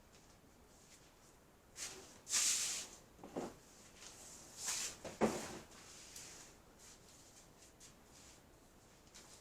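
Short bursts of rustling and a couple of soft knocks, as of things being handled and set down, bunched between about two and six seconds in.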